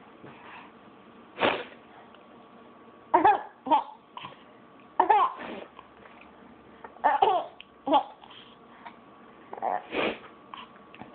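A baby laughing in short high-pitched bursts every second or two, with a single short noisy burst about a second and a half in.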